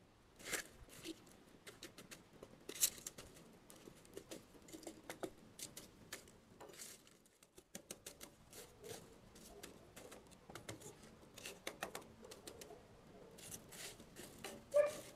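Burning charcoal embers in a forge crackling with irregular sharp pops and ticks, with coals clinking as a poker stirs them.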